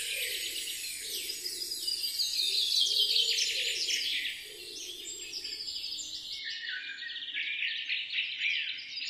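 Background birdsong ambience: many small birds chirping and trilling in quick, overlapping calls.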